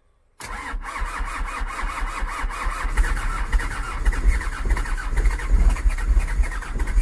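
Toyota Hiace diesel engine being cranked by its starter in deep cold, starting suddenly about half a second in. It keeps up a steady rhythmic chugging without catching, after the glow plugs have been cycled.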